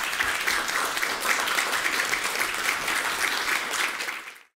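Audience applauding: a dense patter of many hands clapping that cuts off suddenly near the end.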